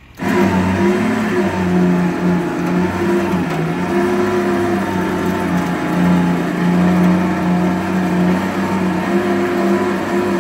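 Winch rig running steadily as it pulls a shed up onto a flatbed trailer: a continuous motor hum whose pitch wavers slightly.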